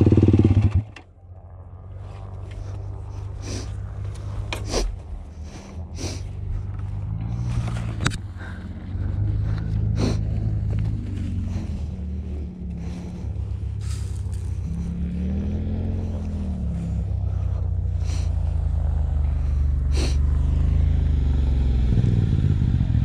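Off-road vehicle engine running as it drives across soft sand, its pitch rising and falling a few times, with scattered sharp knocks and clatter. The engine gets louder near the end.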